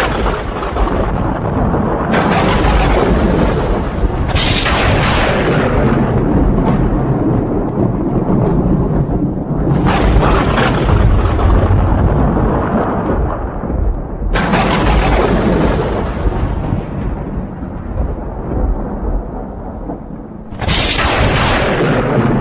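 Thunder: a continuous low rumble broken by about five sharp claps, each cracking suddenly and rolling away over a second or two.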